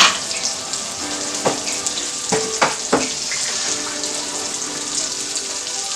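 Asparagus and roasted apple frying in garlic butter in a pan, a steady sizzle, with a few light clicks of a utensil against the pan between about one and a half and three seconds in.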